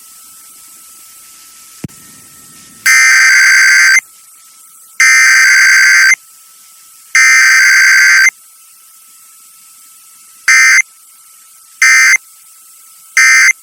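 Emergency Alert System SAME data bursts, a harsh two-tone digital screech. Three long bursts about two seconds apart carry the header, then three short bursts carry the end-of-message code. This is a header-and-end-of-message test sequence with no attention tone or voice.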